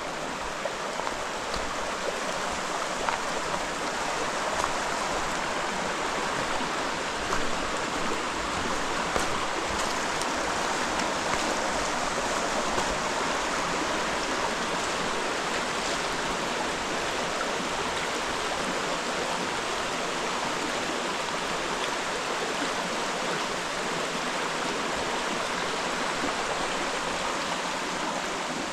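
The Bode, a rocky Harz mountain river, rushing over stones: a steady, even rush of flowing water.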